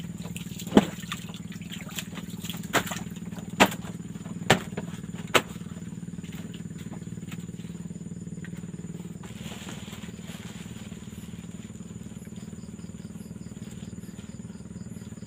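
A steady low hum like a distant engine runs under five sharp knocks in the first five and a half seconds. The knocks are a person getting up and shifting about on the hut's floor.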